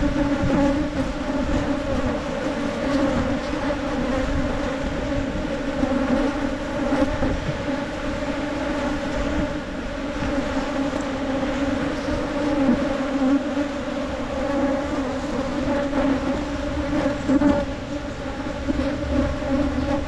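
A colony of wild honeybees buzzing in a dense, steady hum as their comb is dug out of a cavity in the ground, the bees disturbed and flying around the nest.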